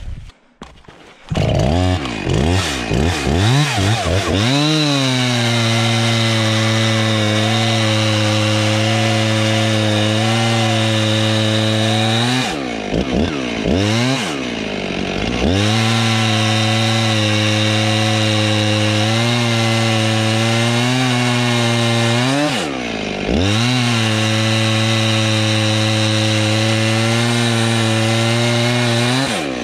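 Two-stroke chainsaw with a PowerSharp self-sharpening chain revving up and cutting through a maple log, held at high speed under load. The engine drops back twice between cuts, about a third and three-quarters of the way through, then revs up again.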